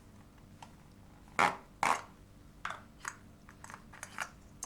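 Handling noise from small hard parts, likely the RAM sticks in their plastic packaging: two louder crackles about a second and a half in, then a few lighter clicks and scrapes.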